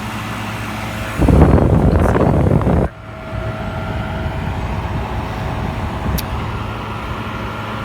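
Vintage Philco Noiseless 6800 BTU window air conditioner running with its compressor and fan on, a steady hum that the owner says sounds like it is running great on a full charge of refrigerant. About a second in, a loud rushing noise covers it for about a second and a half, then cuts off sharply.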